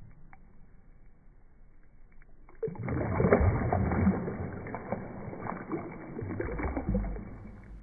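Water splashing and sloshing around a floating light-up jellyfish toy. It starts suddenly about two and a half seconds in, full of little splashes and bubbles, and fades just before the end.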